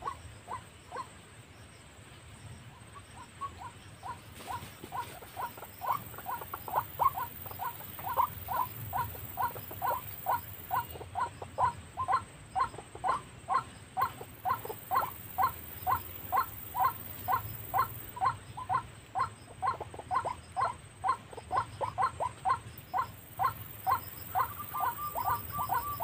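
White-breasted waterhen calling: a monotonous string of short calls repeated about twice a second, which grows stronger a few seconds in. Near the end, a longer steady note overlaps the calls.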